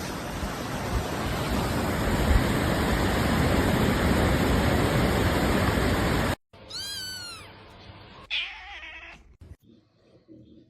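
A steady, loud rushing noise for about six seconds that cuts off abruptly, then a cat meows once, with a fainter second cry about a second and a half later.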